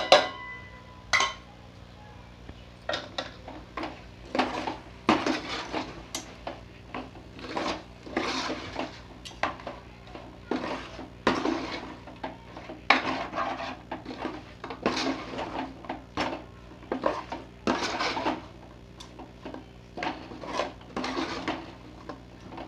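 A metal spoon stirs and scrapes thick chicken masala against the inside of a metal cooking pot in repeated strokes, about one or two a second. There is a ringing clink of spoon on pot near the start.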